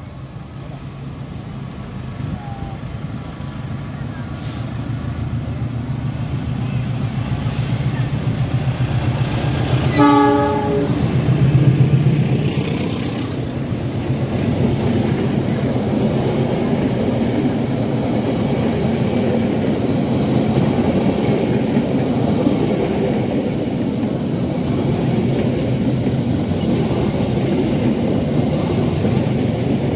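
Train running past on the line, growing louder over the first ten seconds, with a short horn blast about ten seconds in. After that it settles into a steady loud rumble with wheels clattering on the rails.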